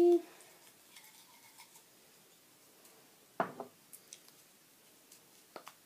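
Small clicks and taps from handling a liquid lipstick tube, with one sharper click about three and a half seconds in and a few lighter ones after it.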